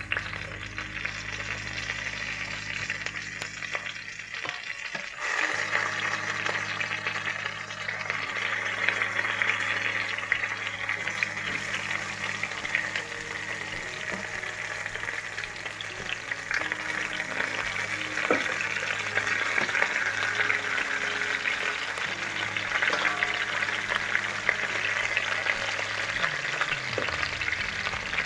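Fried chicken pieces sizzling in a little hot oil in a pot as they are put back in and stirred, with scattered clicks and scrapes of the utensil. The sizzling grows louder about five seconds in.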